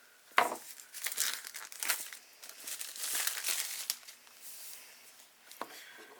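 A pocketknife cutting open the packaging of a small phone box, with irregular scraping, crinkling and tearing. A sharp click comes about half a second in and is the loudest sound.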